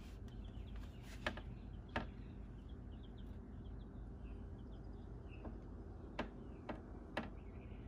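Chicks and ducklings peeping faintly, with five sharp clicks spread through, two in the first two seconds and three close together near the end.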